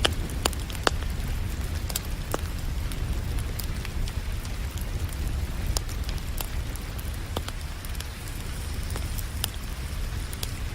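Wood fire crackling with a few sharp pops scattered through, over a steady hiss of rain and a constant low rumble.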